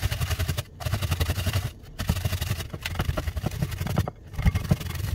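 Fresh coconut flesh being grated on a stainless steel box grater: quick, repeated rasping strokes, broken by short pauses between runs.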